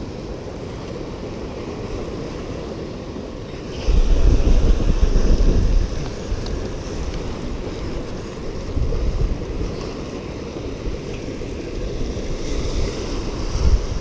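Wind rumbling on the microphone over surf washing against the rocks of a jetty. A heavy gust about four seconds in lasts about two seconds, and there are smaller gusts near the middle and at the end.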